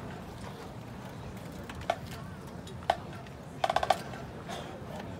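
Sharp wooden percussion clicks from a marching band: single knocks about a second apart, then a quick run of about six more than halfway through, over a steady crowd murmur.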